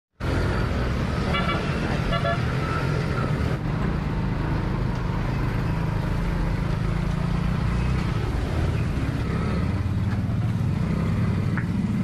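Steady engine and road noise of a two-wheeler riding along a rough road, with two short horn toots about a second and a half and two seconds in.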